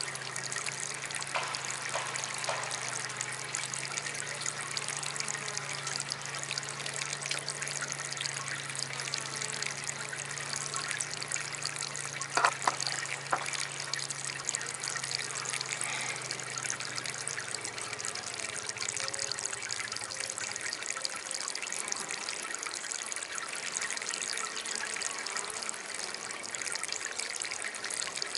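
Small DIY water fountain trickling and splashing steadily. A low steady hum runs under it and fades out about two-thirds of the way through, and a couple of sharp ticks stand out about 12 seconds in.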